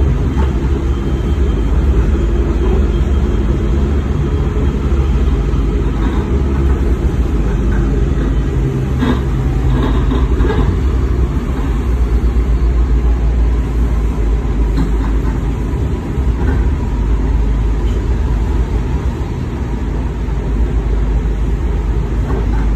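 Steady low rumble of a moving WMATA Metrorail train heard from inside the car: wheels on rails and running gear at speed, with a few light clicks about halfway through.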